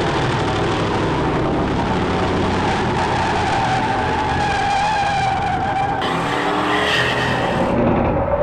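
1970s Ford pickup truck doing a burnout: the engine is held at high revs while the rear tyres spin and squeal on the pavement, one steady sound.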